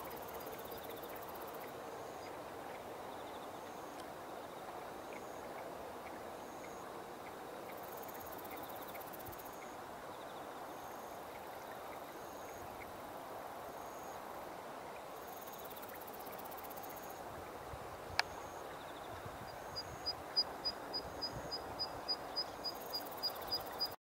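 Rural field ambience with a steady background hum and insects chirping in a regular repeating pattern. Near the end a zitting cisticola calls a rapid series of sharp, high 'zit' notes, about two to three a second, after a single sharp click.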